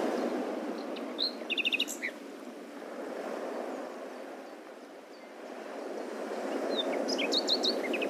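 Birds chirping: a short run of quick repeated high chirps about a second in, and another near the end, over a steady background hiss.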